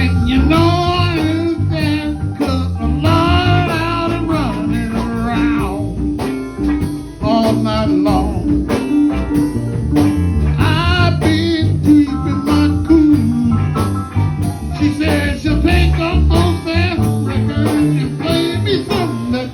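A band playing a song: a lead singer's voice, with vibrato on held notes, over a full accompaniment and a steady beat.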